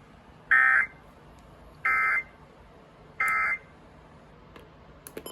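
NOAA Weather Radio SAME end-of-message code: three short bursts of screeching digital data tones, about 1.3 seconds apart, marking the end of the weekly test broadcast. A few faint clicks near the end.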